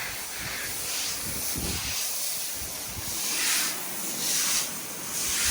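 Water spraying from hoses onto fresh exposed-aggregate concrete to wash off the surface layer: a steady hiss that swells and fades several times as the spray moves across the slab.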